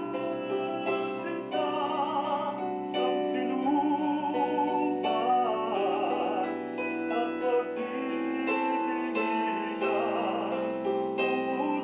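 A man singing a Filipino Christmas song with vibrato, accompanying himself on a Korg electronic keyboard played with a piano sound.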